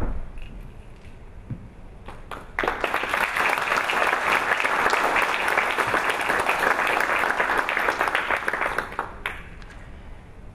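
A single thump right at the start, then an audience applauding for about six and a half seconds, dying away near the end.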